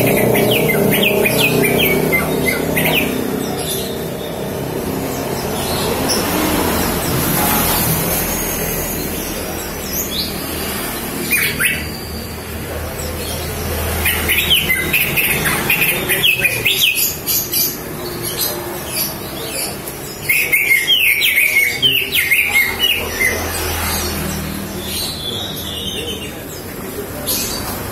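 Green leafbird (cucak ijo) calling in several spells of quick high chirps and whistled notes, with pauses between them, over a low background rumble.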